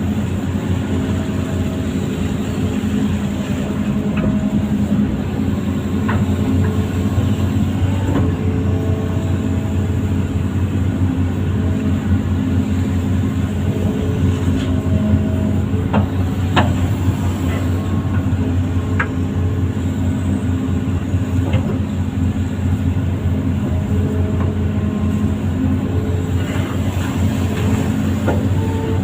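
Hitachi amphibious long-arm excavator's diesel engine running steadily, a deep pulsing drone with tones that come and go above it. A few sharp clicks or knocks, the clearest about 16 seconds in.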